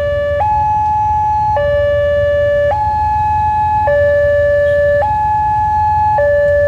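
Railway level-crossing warning alarm from the Wantech crossing's horn loudspeaker, sounding a hi-lo two-tone, the high and low tones alternating about every second. It is the signal that a train is approaching and the crossing is closed.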